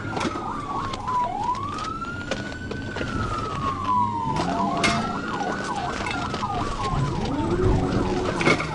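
Police car siren wailing in slow rising and falling sweeps about every three seconds, with rapid short sweeps layered over it. Near the end comes a sharp knock, the loudest sound, as the patrol car bumps the fleeing motorcycle and it goes down.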